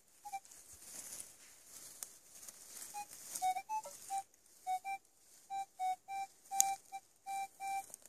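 Metal detector giving short electronic beeps, slightly shifting in pitch, as it is swept over a buried metal target: one beep near the start, then a quick run of about a dozen from about three seconds in.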